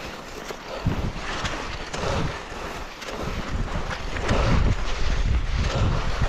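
Wind buffeting an action camera's microphone during a ski run, as low gusty rumbles over a steady hiss. The rumbles start about a second in and grow heavier from about four seconds.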